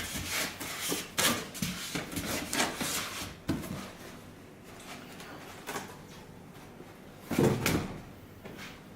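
Handling noises from unpacking a car stereo's accessories from their box: a busy run of clicks, knocks and rustles over the first few seconds, then a single loud scrape or rustle near the end.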